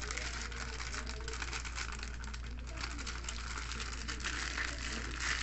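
Plastic poly shipping mailer rustling and crinkling as it is handled and turned over, over a steady low hum.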